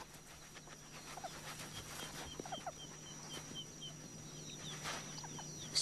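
Meerkats giving a few short, soft squeaking calls, with a run of quick high chirps, about four a second, in between.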